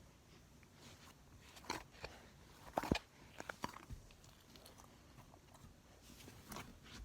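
Slime being squished and poked close to the microphone: scattered soft sticky clicks and pops, loudest in a cluster about three seconds in.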